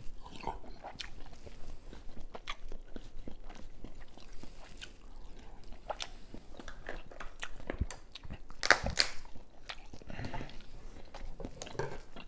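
A person chewing and biting into seafood from a seafood boil, with many small irregular clicks, and a louder sharp sound about nine seconds in.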